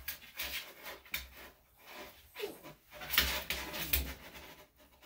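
Grooming comb dragged in short, repeated strokes through a Maltese's matted tail hair: a run of rough rubbing scrapes.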